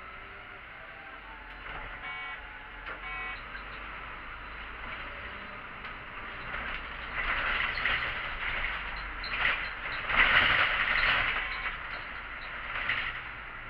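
City bus: short electronic beeps about two and three seconds in, then, from about halfway through, several loud bursts of hissing that fade out near the end.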